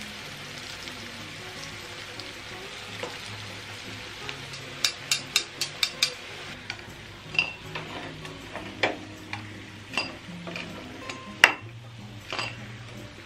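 Arrowroot (nduma) slices sizzling in shallow oil in a frying pan. From about five seconds in, a spatula taps and scrapes against the pan a dozen or so times as the slices are turned and lifted out, with the sharpest tap near the end.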